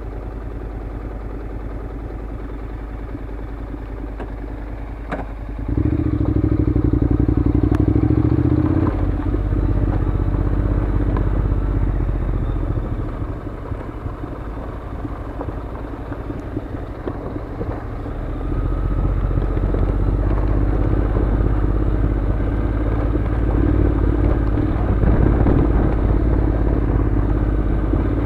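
Honda NC700's parallel-twin engine idling, then pulling away about six seconds in and running on a gravel track, easing off for a few seconds around the middle before picking up again. Gravel crackles and clatters under the tyres.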